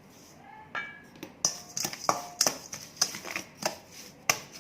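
A spoon clinking and scraping against a bowl while sugar is spooned into the salad dressing. A quick run of sharp clinks starts about a second in, a few of them ringing briefly.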